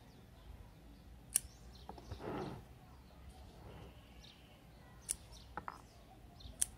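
Small scissors snipping the leaves off a dwarf jade (Portulacaria afra) stem: three sharp snips, one about a second and a half in and two near the end, with softer rustling of handling in between.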